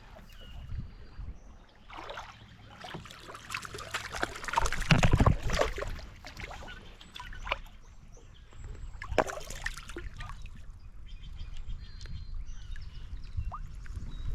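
Water splashing and trickling against a kayak, with irregular knocks and splashes, loudest about five seconds in and again about nine seconds in.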